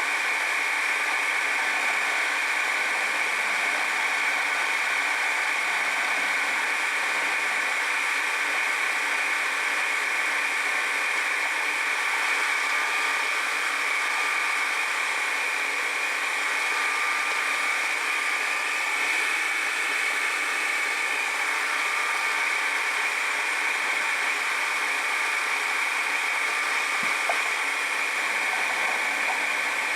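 Machine-tool motor running steadily while a new gear tooth is cut, an even whirring hiss with a faint high tone and no rhythm. A single light click comes near the end.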